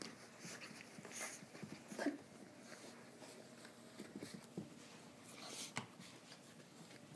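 Two small dogs play-fighting: faint, short dog noises and scuffling in an irregular scatter, loudest about two seconds in and again near the end.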